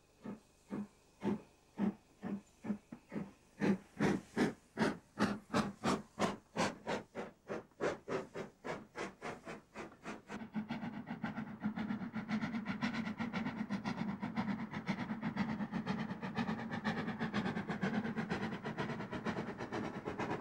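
Somerset & Dorset Joint Railway 7F 2-8-0 steam locomotive working a train, its exhaust chuffing in sharp, even beats that quicken from about two to three a second and are loudest around five seconds in as it passes. About ten seconds in the beats give way to a steady rumble of the coaches running past.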